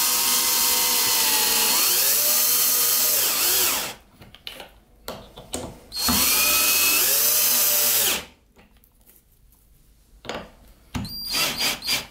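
Parkside cordless drill/driver driving flat-headed screws into a sofa's chipboard frame, in two runs: about four seconds, then about two seconds. The motor whine dips in pitch as the screw takes load. Short knocks and clicks of handling come between the runs and near the end.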